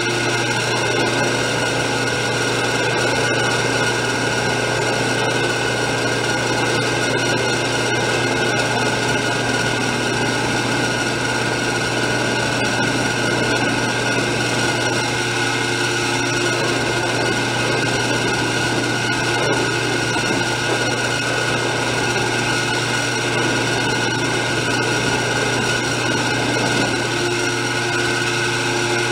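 Bench buffer running steadily, its cloth buffing wheel polishing a nickel-plated snare drum hoop held against it: a constant motor hum with steady whirring and rubbing.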